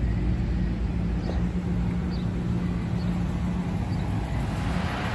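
Ram 2500 pickup truck rolling slowly across a parking lot toward the listener, its engine running with a steady low drone.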